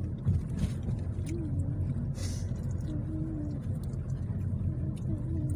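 Car cabin noise while driving: a steady low rumble of engine and tyres, with a faint voice in the background and a brief hiss about two seconds in.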